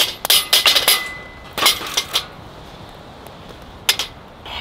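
Firewood and a metal pot knocking on a metal fire-pit grate: a burst of clattering knocks in the first second, a couple of single knocks, and a sharp knock near the end as the pot is set down on the grate.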